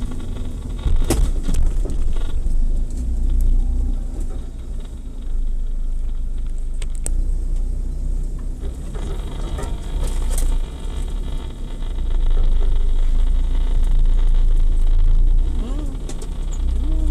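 Off-road 4x4 engine running with a low rumble, getting louder about twelve seconds in, with a few sharp knocks.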